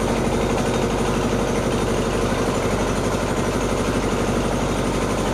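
An engine running steadily at idle, with a fast, even throb.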